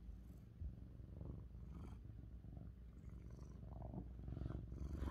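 Lynx point Siamese cat purring steadily, a low rapid rumble that grows louder near the end.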